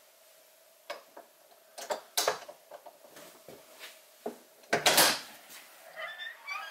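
Clicks and knocks of an RV entry door's latch being handled, then a louder clatter about five seconds in as the latch releases and the door opens.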